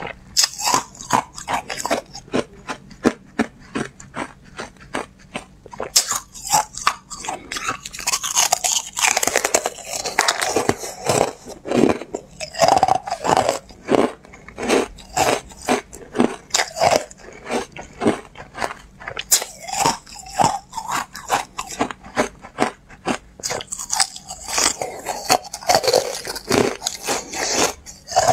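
Carbonated ice being bitten and chewed, a dense run of crisp crunches several times a second, getting sharper and busier about six seconds in.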